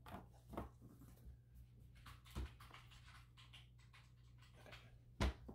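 Picture frame being handled while its backing board is pressed in: a few light clicks and scrapes, with one sharper knock near the end.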